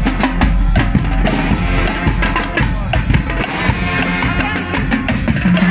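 Marching band playing: a bass drum and snare drums beat out the rhythm under saxophones and brass.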